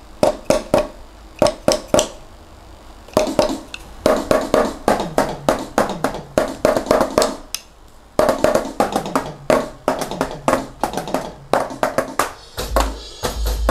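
Electronic drum kit being played: quick, irregular runs of drum strikes on a trial preset kit, with a few deep kick-drum thumps near the end. The preset is one the player finds saved too quiet.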